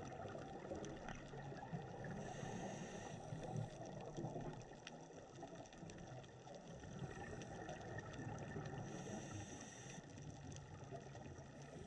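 Faint underwater ambient noise picked up by a camera in the water: an even low wash with no distinct events.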